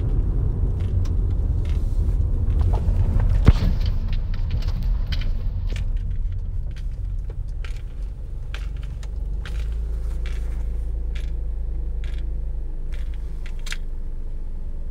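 A steady low rumble of background noise, with light clicks and taps scattered over it and one sharper tap about three and a half seconds in.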